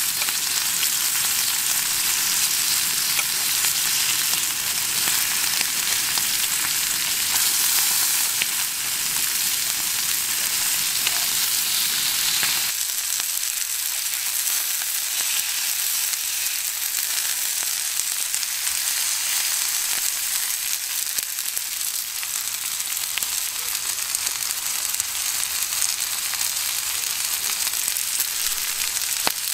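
Steak sizzling steadily on a hot black iron griddle plate.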